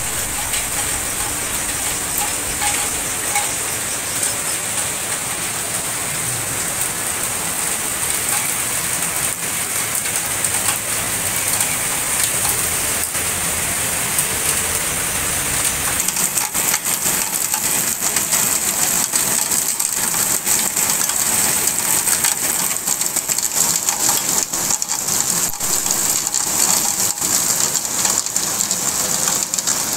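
Heavy rain falling onto a wet paved street and puddles: a steady hiss with a patter of drops that grows denser and louder about halfway through.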